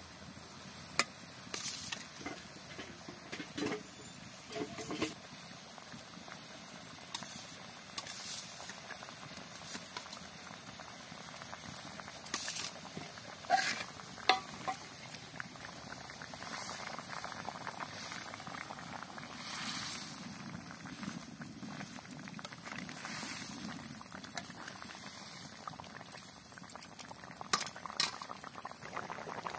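Fish curry bubbling at a steady boil in a black kadai, with a metal spatula now and then clinking and scraping against the pan as the fish pieces are turned; the sharpest clicks come about a second in, around the middle and near the end.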